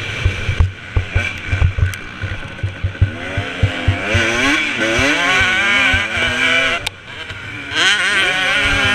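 2017 KTM 250 SX two-stroke motocross engine, heard close from the bike, revving up and down as it is ridden hard on a dirt track, with low thumps over the first few seconds. The throttle shuts briefly about seven seconds in, then the engine revs up again.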